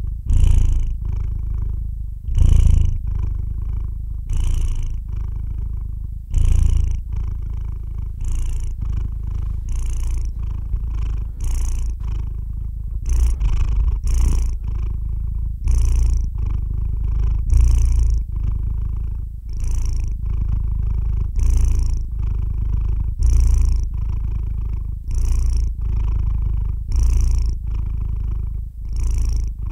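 Sleeping calico cat purring: a steady low rumble that swells with each breath, about every two seconds.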